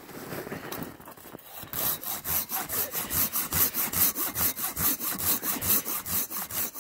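Silky folding handsaw cutting through the base of a standing aspen trunk to fell it. After quieter handling for about a second and a half, fast, even strokes set in, about five or six a second.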